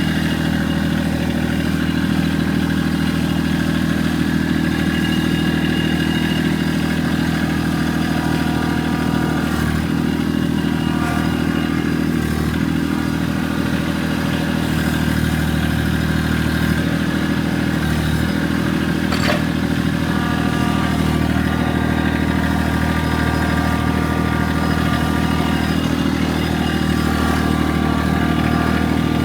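An engine running steadily at idle, with a brief sharp click about two-thirds of the way through.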